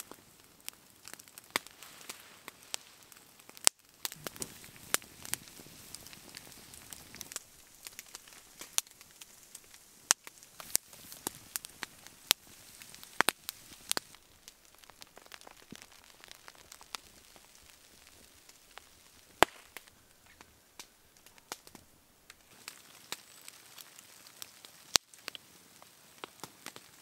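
Wood campfire crackling, with irregular sharp pops over a faint steady hiss.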